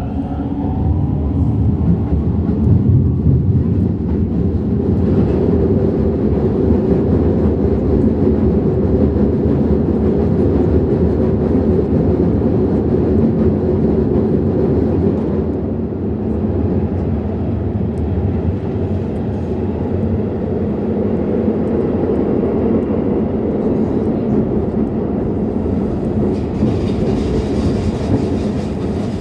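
Keio 9000 series electric train running through a subway tunnel, heard from inside the car: a steady, loud low rumble of wheels on rail. A rising motor whine fades out right at the start.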